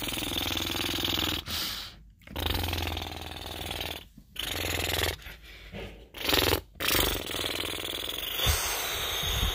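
A person making battle sound effects with the mouth, imitating engines and fighting: a string of hissing, buzzing bursts with short breaks between them.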